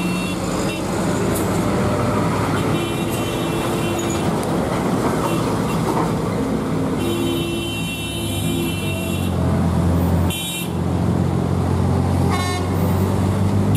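Road traffic on a steep hairpin: vehicle engines running with a deep steady hum. Vehicle horns sound over it several times: a toot of over a second about three seconds in, a longer one of about two seconds around seven seconds in, and a short one near the end.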